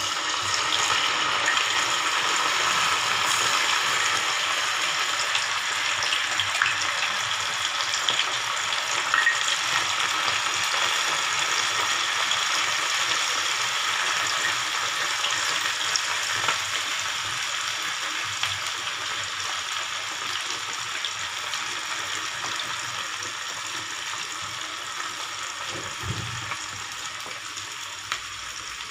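Batter-coated anchovies deep-frying in hot oil: a loud, steady sizzle with fine crackles that slowly eases off as the frying settles.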